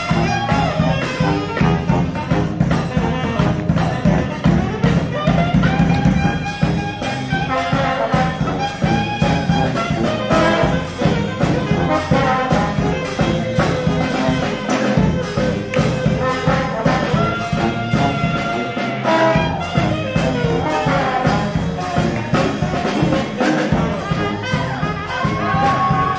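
Brass band playing a tune: trumpets, trombones and saxophones holding long notes in several parts over a steady percussion beat.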